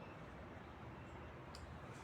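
Faint steady background noise with one short, sharp click about one and a half seconds in.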